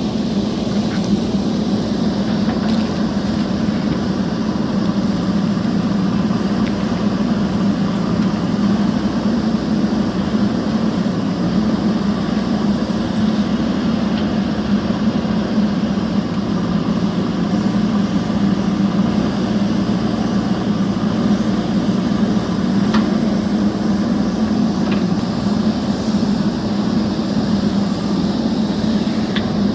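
JCB backhoe loader's diesel engine running steadily at a constant pitch, with a few faint clicks.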